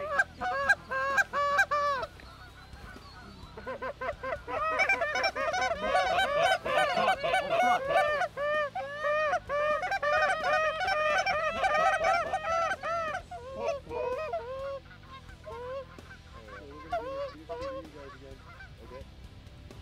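Canada goose honking: a few honks at the start, then after a short pause a dense, fast run of many overlapping honks and clucks that thins out to scattered honks.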